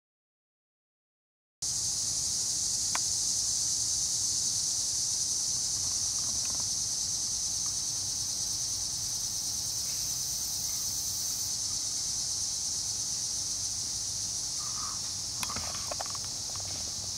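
Silence for about a second and a half, then a loud, steady, high buzzing chorus of insects in summer trees that runs on without a break. A few faint clicks come near the end.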